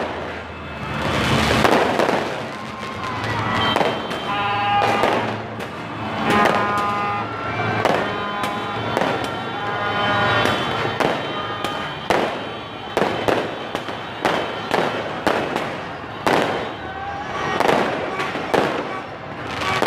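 Aerial fireworks bursting overhead: a steady run of sharp bangs and crackles, coming faster in the second half.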